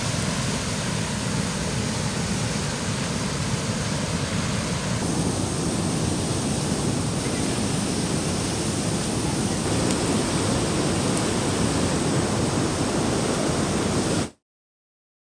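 Steady rush of a fast-flowing river over rocks. It shifts to a fuller, deeper rush about five seconds in and cuts off suddenly near the end.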